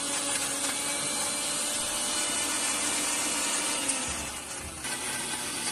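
Electric mixer grinder switched on abruptly and running steadily at full speed, its blades grinding tamarind, green chilies and salt in a steel jar into a paste.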